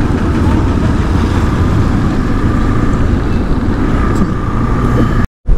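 Motorcycle running steadily while being ridden, with a heavy low wind rumble on the rider's microphone. The sound cuts out completely for a moment near the end.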